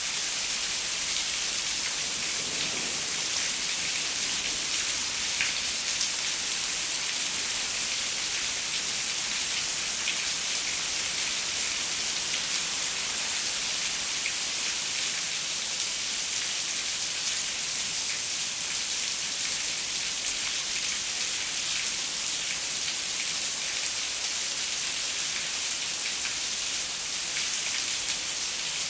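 Steady rain falling on a window, an even hiss with many small drop ticks.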